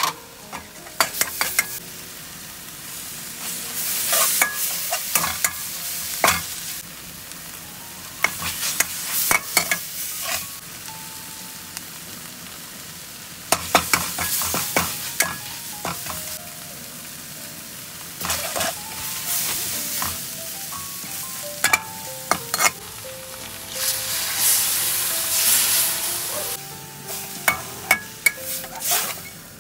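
Red curry paste frying in a wok, sizzling in swells as it is stirred. A metal spatula scrapes the pan and knocks sharply against it over and over.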